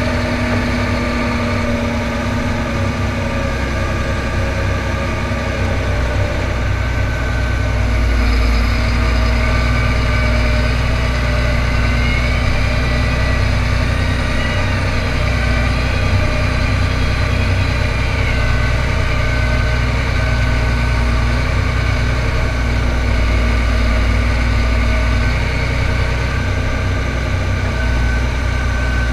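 John Deere tractor's diesel engine running steadily as the tractor drives, heard close from the hood; it grows a little louder about eight seconds in, and a faint whine rises and falls in the middle.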